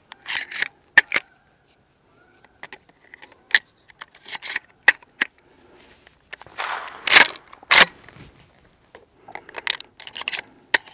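Shotshells clicking into the tubular magazine of a Mossberg 835 Ulti-Mag 12-gauge pump shotgun as it is loaded, a string of sharp metallic clicks. A little past seven seconds in comes a louder pair of clacks about half a second apart, which fits the pump action being worked back and forward to chamber a shell.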